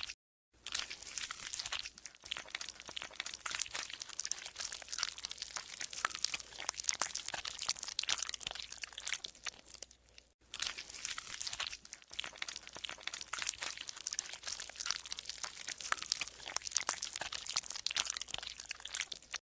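Golden slime squeezed and kneaded by hand, a dense run of small crackling squelches and pops, with a short break just after the start and a brief one about ten seconds in.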